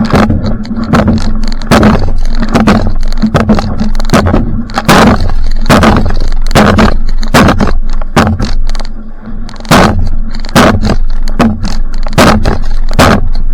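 Va'a outrigger canoe paddled at sprint pace: repeated sharp paddle splashes and knocks, about two or three a second, over a loud rough rushing noise.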